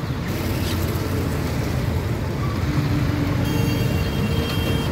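Road traffic crossing at a railway level crossing: auto-rickshaw and motorcycle engines running in a steady low rumble. A thin high steady whine joins about three and a half seconds in.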